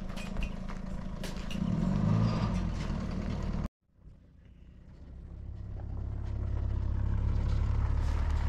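Pickup truck engine running as it drives over a gravel track, with sharp crunching clicks and a brief rise in engine pitch about two seconds in. The sound cuts off suddenly about three and a half seconds in, and a steady low rumble then slowly builds.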